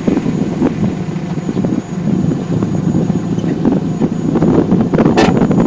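Ford Focus 2 on the move, with steady road and tyre rumble and a few sharp metallic knocks from the rear. The loudest knock comes about five seconds in. The title traces this rattle from the rear suspension area to a loose brake pad.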